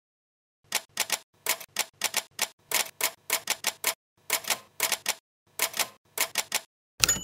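Manual typewriter keys striking the paper in quick, uneven runs of keystrokes, about three a second. Near the end comes a sharp, louder strike that rings on.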